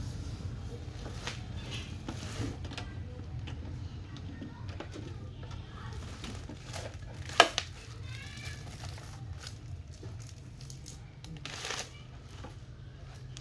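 Handling of unboxed welding-machine parts and packaging: rustling and crinkling with scattered clicks, and one sharp knock about seven seconds in, over a steady low hum.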